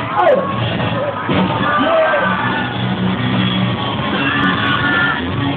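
Live rock music played loudly, with voices yelling and singing over it.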